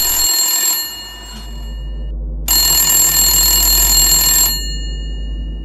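Telephone ringing: the tail of one ring dies away in the first second, then a full ring of about two seconds comes a couple of seconds in and fades.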